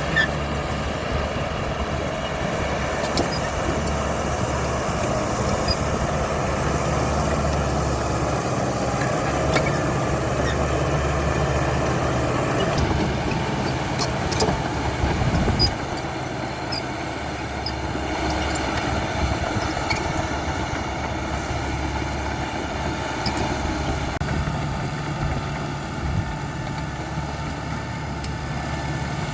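CAT D5K XL bulldozer's diesel engine running steadily as the machine works. A few sharp knocks come about halfway through, after which the engine runs a little quieter.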